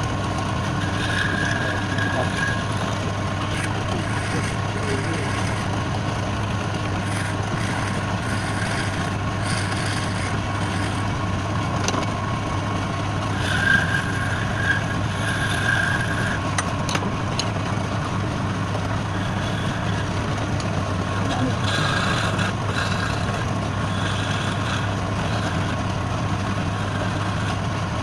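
Steady hum of a workshop machine's electric motor running continuously, with brief higher tones about a second in and again around 14 seconds.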